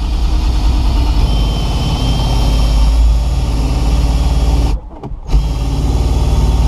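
Ryobi cordless drill driving a windshield wire-cutout winder, its motor running steadily under load as it winds the cutting wire through the urethane, with a faint whine. It stops for about half a second near the end, then runs again.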